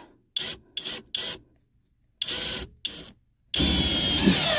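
Power drill driving a long wood screw at an angle through a 2x4 into a floor joist: three short trigger bursts, two more a second later, then a steady run of about two seconds in which the motor's pitch drops as the screw bites and pulls the wood tight.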